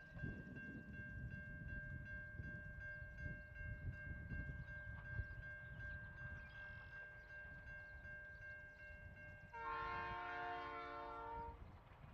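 Canadian National diesel freight locomotives approaching with a low rumble, then sounding their horn in one blast of about two seconds near the end.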